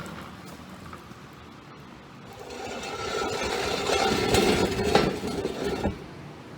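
Scraping and rubbing handling noise that builds over a few seconds, with a couple of sharp clicks near the end.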